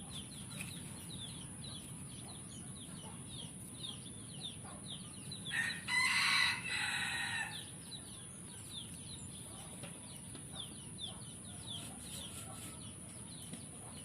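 A rooster crows once, a pitched call about two seconds long, about halfway through. Short high chirps repeat throughout.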